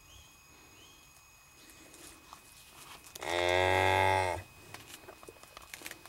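A single moo from cattle, about a second long, starting about three seconds in and dropping slightly in pitch as it ends.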